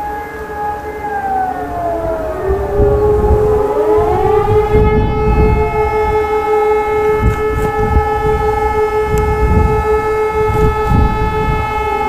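New ECN electronic civil-defence sirens sounding a test alarm, several tones held steady at once; about a second in, one tone slides down in pitch and then climbs back up between about three and four and a half seconds.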